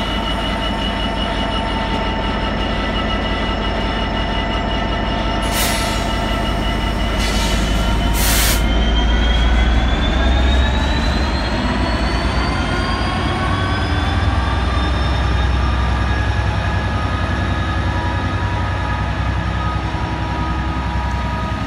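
Class 66 diesel locomotive pulling away from a standstill with a loaded freight train: a deep steady engine rumble, with a whine that rises in pitch as it powers up from about eight seconds in. Three short hisses come between about five and nine seconds in.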